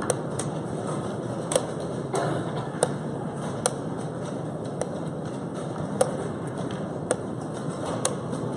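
Wooden chess pieces being set down on a wooden board and chess clock buttons being pressed in a fast game: about ten sharp clicks, roughly one a second, over a steady hiss of room noise.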